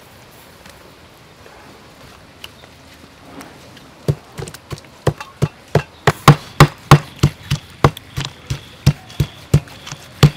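A knife chopping raw chicken breast on a wooden chopping board. After a few quiet seconds, steady knocks start about four seconds in and go on at about three a second.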